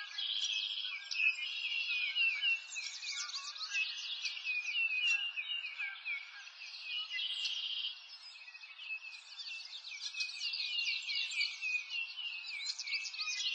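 A chorus of many small birds chirping and twittering at once, quick high chirps overlapping throughout, thinning a little about eight seconds in.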